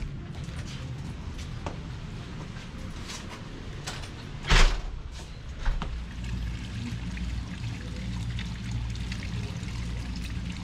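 Koi pond water trickling and pouring steadily, with one loud, short knock about four and a half seconds in.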